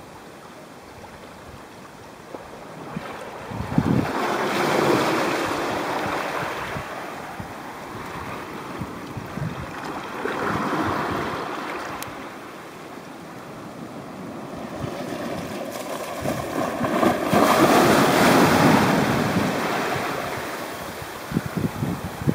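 Sea waves washing in and breaking, the rush swelling up three times several seconds apart, with wind buffeting the microphone.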